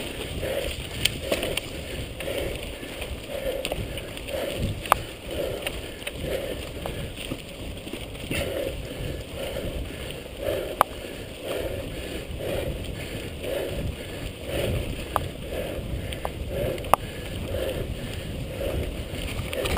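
Mountain bike rolling over a dirt forest trail: tyre and trail rumble with wind on the microphone, a rhythmic swish about once a second, and a few sharp clicks of the bike rattling over bumps.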